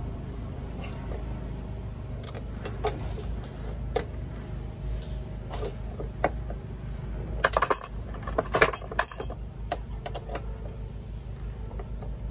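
Hand tools at work on a bolt in a van's steel door pillar: scattered metal clicks of a socket driver, then a burst of jangling metal-on-metal clinks from spanners and sockets being handled about seven to nine seconds in, over a low steady rumble.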